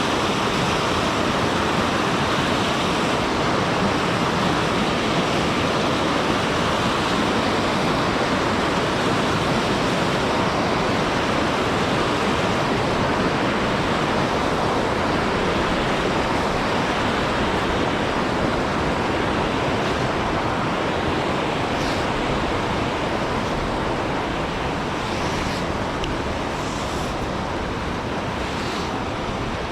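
Steady rush of fast-flowing mountain river water, easing slightly in the last few seconds.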